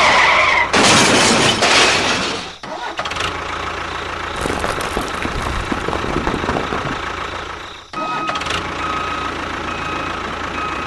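Engine noise running steadily, loudest for the first two seconds, with abrupt breaks about three seconds in and again near eight seconds.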